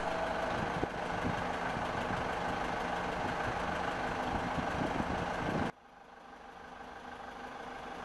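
Steady machinery noise, like an engine running, that cuts off suddenly about two-thirds of the way through. A much quieter sound then fades back up.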